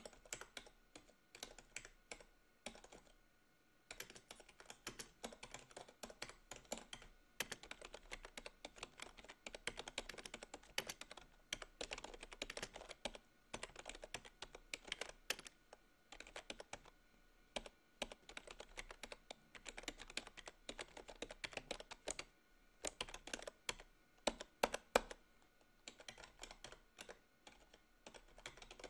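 Typing on a desktop computer keyboard: quick runs of keystrokes broken by a few short pauses.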